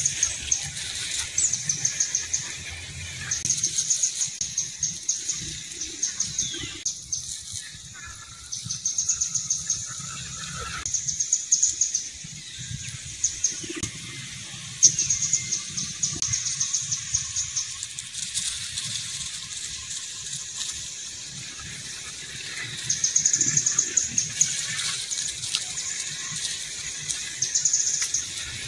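A high, rapidly pulsing trill that comes in bursts of a second or two, repeating every couple of seconds, from a small animal outdoors.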